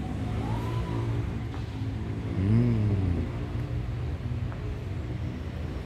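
Yamaha Aerox 155 scooter's single-cylinder engine idling steadily, with one brief throttle blip about two and a half seconds in, the pitch rising and falling back.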